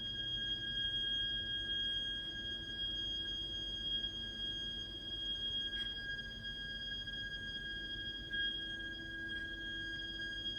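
Heat interface unit (HIU) and heating pipework giving off a continuous high-pitched shrieking whistle: one steady tone with overtones above it. This is the abnormal plumbing noise fault of the heating system.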